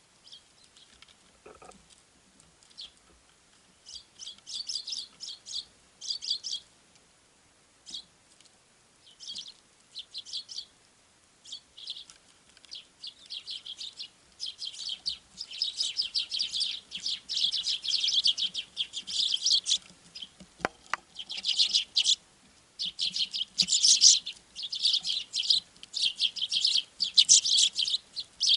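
Small forest birds chirping and calling in short, high bursts, scattered at first and building to near-continuous chatter in the second half.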